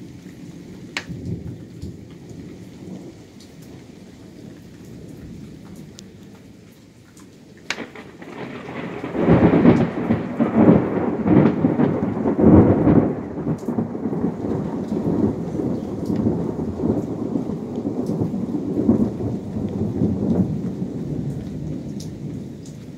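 Thunder. A low rumble, then a sharp crack about eight seconds in, followed by a loud rolling rumble that peaks over the next few seconds and slowly fades away.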